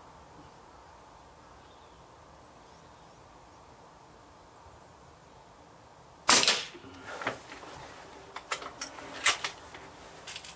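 A .177 Air Arms Pro-Sport spring-piston air rifle fires once about six seconds in, a single sharp crack, followed by several softer clicks and knocks.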